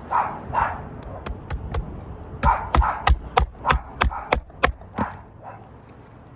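A quick run of about seven sharp hammer blows, about three a second, on a shingle roof, with a few lighter taps before them. A dog barks several times through it.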